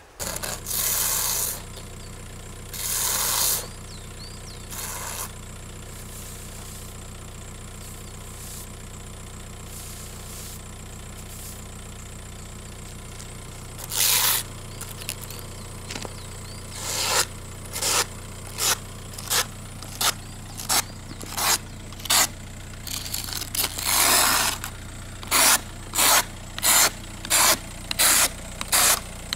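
Snow being cleared off a car with repeated sweeping strokes across the glass and roof. There are a few spaced strokes at first, then a steady run that quickens to about two a second near the end, over the steady hum of a car engine idling.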